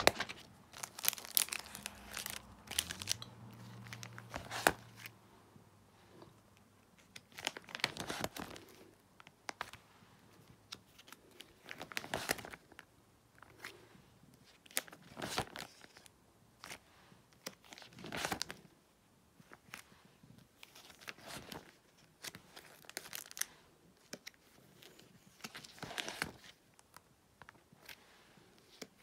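Plastic binder sleeve pages crinkling and rustling as they are turned, in short bursts every few seconds.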